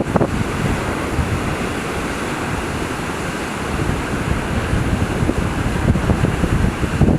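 Big ocean waves crashing in a steady wash of surf, with wind buffeting the microphone in gusts, strongest near the start and again near the end.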